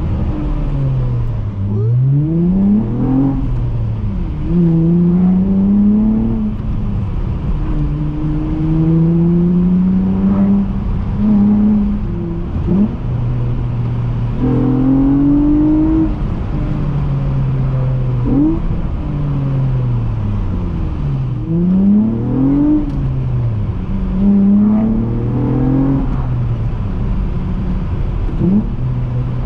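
Honda J32A3 3.2-litre VTEC V6 in a six-speed manual Accord coupe, heard from inside the car, revving hard through the gears several times. The pitch climbs on each pull, drops at each shift and glides down when the throttle is lifted.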